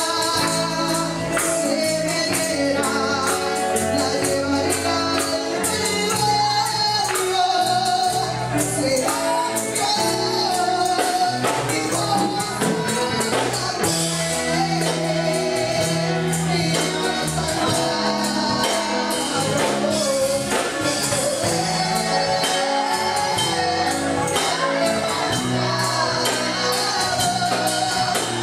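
Praise music with singing over instruments and tambourine jingles throughout.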